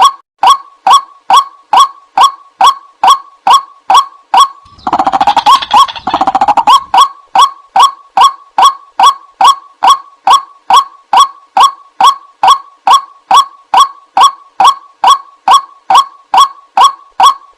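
White-breasted waterhen call: a loud, clipped note repeated evenly about two and a half times a second. Between about five and seven seconds in, a denser, louder run of wavering calls overlaps the steady notes.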